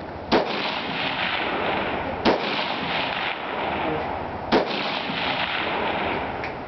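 Carbine fired three times from the prone position, evenly paced about two seconds apart, each a sharp crack, with a fainter crack near the end, over a steady background hiss.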